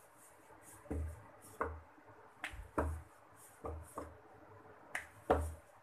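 Wooden rolling pin rolling out puri dough on a wooden board, giving a string of soft knocks against the board, about eight of them, irregular and often in pairs.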